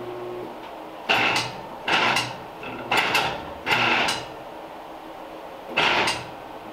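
Vintage Walker four-post car lift, rigged with wire rope, being let down a little to settle onto its locks: five short clunks with some scraping, mostly about a second apart, the last after a longer pause.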